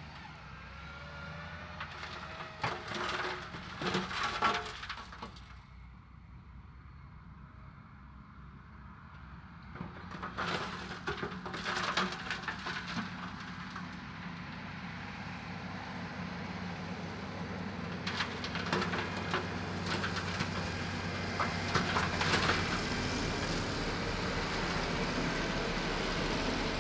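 Heavy diesel construction machinery running steadily, with three spells of clattering and scraping over the engine.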